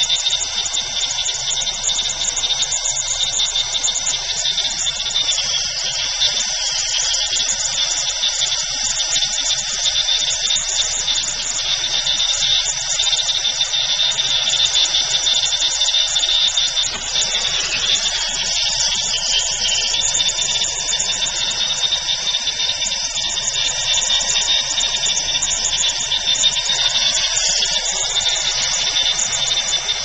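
Brazing torch flame hissing steadily as it heats a copper joint at a refrigerant filter-drier.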